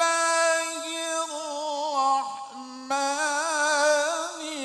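A man's voice chanting Arabic in the melodic style of Quran recitation (tilawah): long held notes that waver and turn in pitch, with a short pause for breath a little past the middle.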